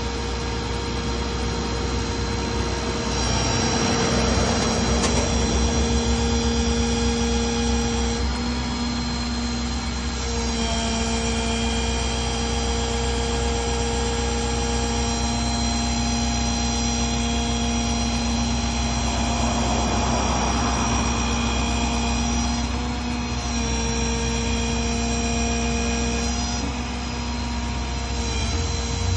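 Ford F-550 rollback tow truck running with its hydraulic pump driving the flatbed bed as it tilts down and slides back onto the frame. A steady mechanical whine over the engine's running, stepping to a new pitch several times as the bed moves.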